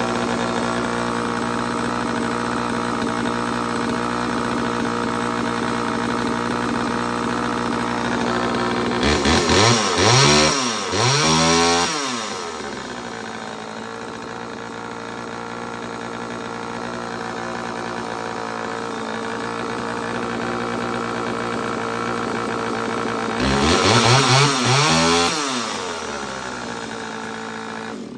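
Homelite Super EZ two-stroke chainsaw idling steadily, blipped up to high revs a few times about nine seconds in and again a few times near the end, then shut off suddenly.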